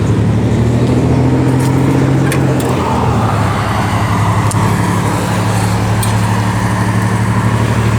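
Steady low hum, like an idling engine, with a slight shift in pitch about three seconds in, and a few faint clicks.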